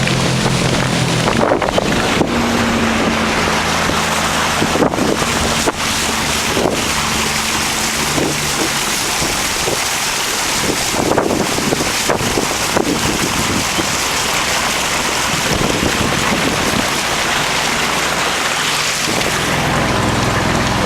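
Small motorboat's engine running under way, with wind buffeting the microphone and water rushing and splashing. The engine's low hum stands out just before a second in and again near the end.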